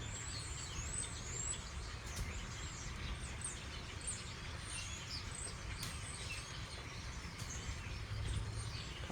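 A large flock of songbirds chirping and twittering together, a dense stream of short high chirps overlapping throughout, over a steady low rumble.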